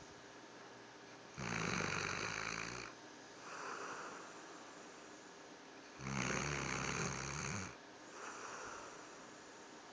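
A sleeping dog snoring loudly. Two long snores, each about a second and a half and about four and a half seconds apart, are each followed by a softer breath.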